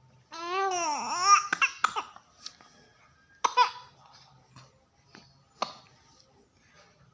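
Baby laughing: a long squealing laugh with its pitch swooping up and down about half a second in, then two short sharp bursts of voice a couple of seconds apart.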